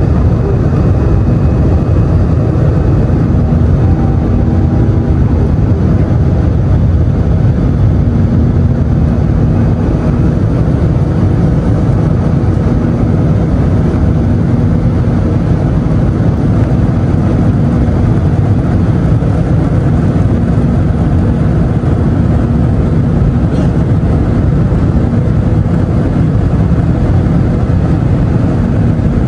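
Steady cabin noise inside an Airbus A320-214 in flight: a loud, even roar of its CFM56 engines and the airflow, with a faint low hum.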